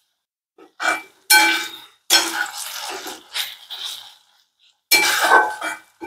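Flat metal spatula scraping and clanking against a metal kadhai while stirring sliced onions and chillies, in several strokes with a ringing metallic tone.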